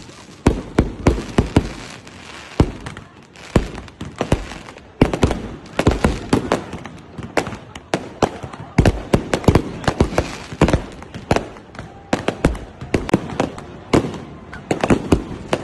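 Fireworks going off: a fast, irregular barrage of sharp bangs and pops, often several a second, with a few louder blasts among them.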